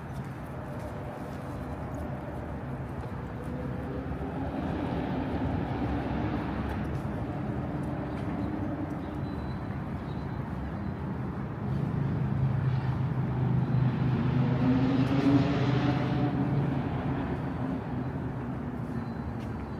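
Motor vehicles passing on a city street: a steady engine hum that swells as one vehicle goes by about five seconds in, and again, louder, as another passes around fifteen seconds in.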